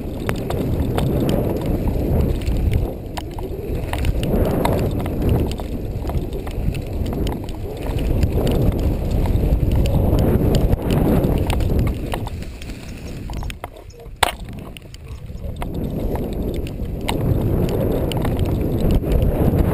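Mountain bike rolling over a dirt trail: uneven tyre rumble with rattles and knocks from the bike and its camera boom mount. The rumble eases for a couple of seconds partway through, where one sharp click stands out.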